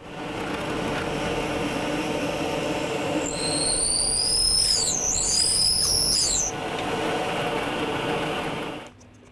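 Drill press running as its bit bores into a block of wood. About three seconds in, a high squeal that wavers and dips in pitch rises over the machine noise for about three seconds as the bit cuts. The machine noise stops abruptly near the end.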